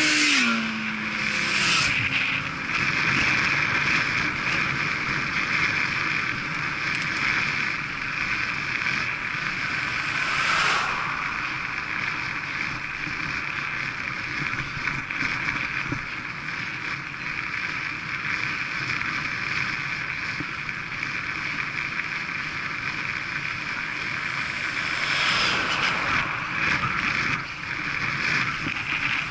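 Wind rushing over the microphone of a bike-mounted camera, with tyre noise on tarmac, on a road bike riding at about 20–25 mph: a steady rushing hiss. In the first second or two a motorcycle just ahead pulls away, its engine note falling.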